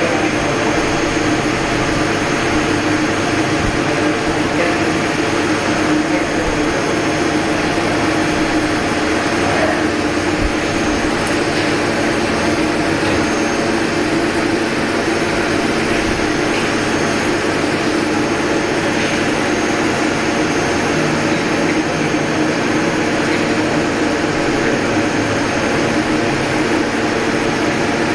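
CNC lathe running steadily: a loud, even machine noise with a constant hum and a thin high whine that does not change.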